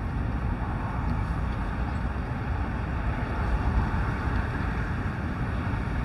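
Steady outdoor background noise: a low rumble with a hiss above it and no distinct bird calls standing out.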